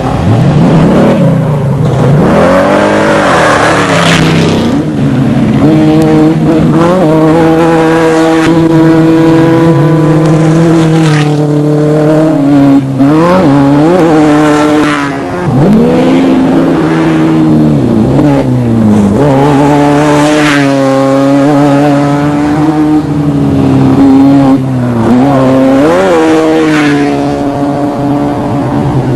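Off-road desert race vehicle's engine running hard, its pitch rising and falling repeatedly as it accelerates and backs off, with long stretches held at steady high revs.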